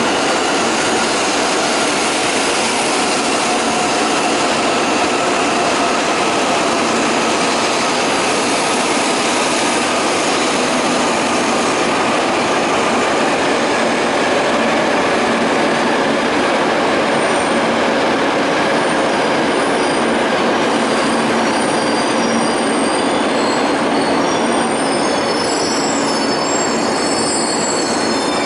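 E2 series Shinkansen train pulling out of the station along the platform, a loud, steady rush of wheel and running noise as its cars go by. The last car clears near the end.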